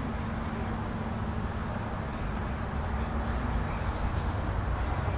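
Steady outdoor background noise: a low rumble with a faint steady hum under it and no clear single event.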